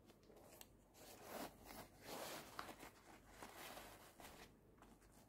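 Faint rustling and soft scuffs of a suede New Balance 990 sneaker being handled close to the microphone, a cluster of swishes and small clicks from about a second in until near the end.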